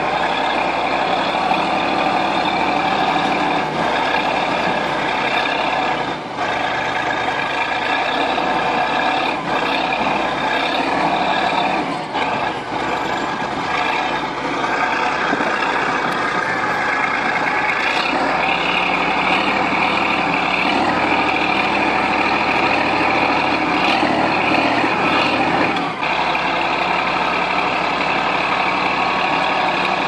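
Chetra crawler bulldozer's diesel engine running hard as the machine crawls over broken ice and rock. A few knocks come through, and a high whine rises about halfway through.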